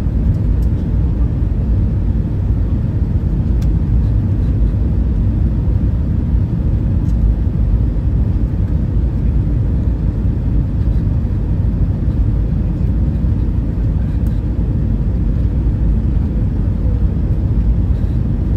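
Steady low rumble of airflow and engines inside the cabin of an Airbus airliner descending on approach, with a few faint clicks.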